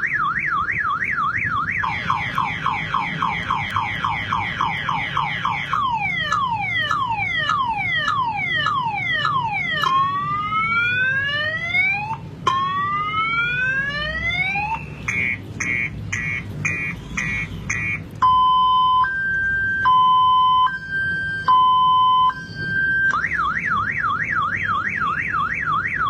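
Multi-tone car alarm siren cycling through its tones. It starts with a fast up-and-down warble, then a series of quick falling sweeps and slower rising whoops, then rapid pulsing beeps. Next comes a loud slow alternation between two pitches, and near the end it returns to the warble.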